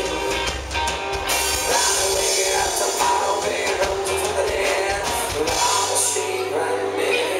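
Live rock band playing: a singer over acoustic and electric guitars, bass and drum kit.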